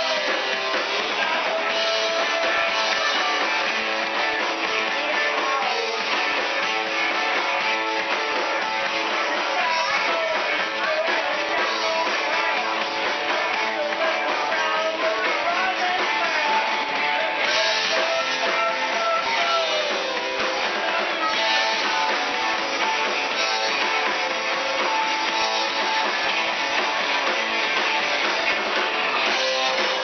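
Live rock and roll band playing, with electric guitar and drums.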